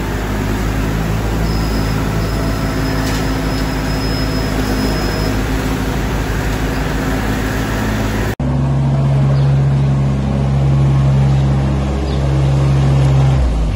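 Straw bedding blower running behind a tractor, its fan blasting chopped straw with a loud, even rushing noise over the engine hum. About eight seconds in it cuts abruptly to a compact loader's engine running steadily, swelling and dipping a little in loudness.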